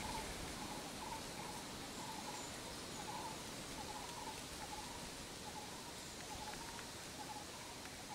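Forest ambience: a bird repeating a short call over and over, roughly every half second to a second, over a steady hiss.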